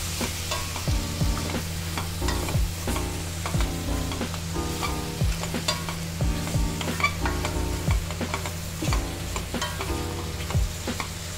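Prawns being stirred into masala in a stainless-steel kadai: a spatula scrapes and knocks against the pan about once or twice a second while the masala sizzles, with a steady low hum underneath.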